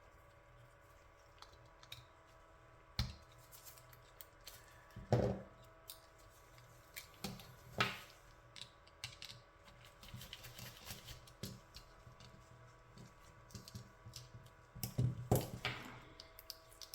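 Scattered light clicks and taps of small plastic parts and tools being handled, with a few louder knocks, as a third-party Joy-Con controller is taken apart by hand.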